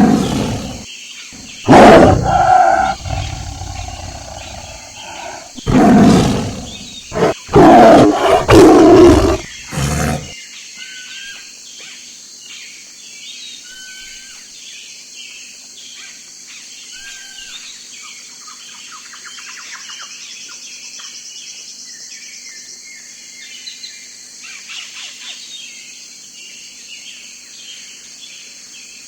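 A big cat roaring: a run of loud, deep roars over the first ten seconds. About ten seconds in it cuts abruptly to birds chirping over a steady high insect buzz.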